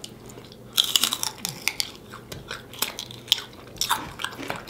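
A person biting and chewing chicken wings close to the microphone: an irregular run of crunchy clicks and crackles that starts about a second in.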